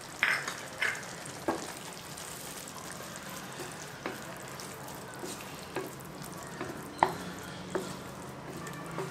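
A wooden spatula stirring a thick beetroot and coconut curry in a nonstick kadai, with scattered scrapes and knocks against the pan, the strongest in the first second and a half and one about seven seconds in. Under it the curry sizzles steadily.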